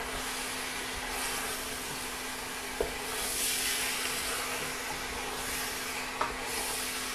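Duck pieces frying in curry in a pan while being stirred: a steady sizzle with the utensil scraping through, and a sharp knock against the pan a couple of times, over a steady low hum.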